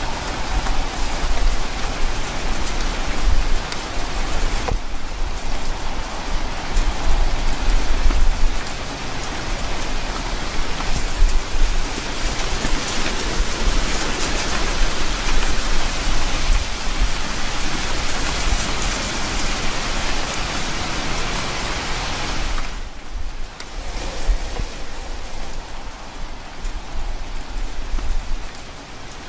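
Heavy rain falling steadily on grapevine leaves, a dense hiss with a deep low rumble underneath for much of the time.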